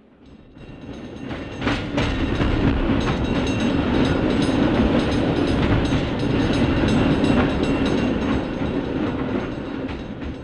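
Cable car running along with a steady rumble and a rattle of clicks. It grows louder over the first two seconds and fades away toward the end.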